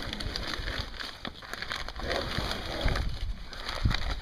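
Rotten, water-damaged plywood skin being torn and peeled by hand off a trailer bunk panel, the brittle papery layers crinkling and crackling irregularly.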